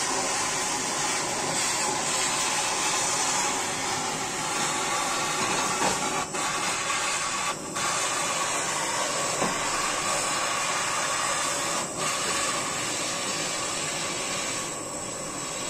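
Handheld butane blowtorch on a screw-on gas cartridge burning with a steady hiss as its flame plays on a metal rod, dipping briefly a few times.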